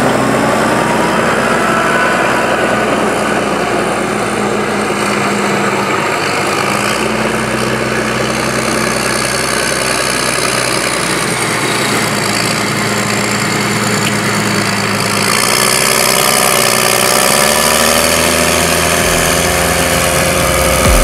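New Holland T7070's overboosted 6.7-litre NEF six-cylinder diesel running through an open exhaust pipe, holding steady and getting a little louder about fifteen seconds in.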